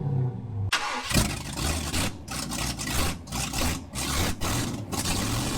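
An engine starting about a second in, then running in uneven surges.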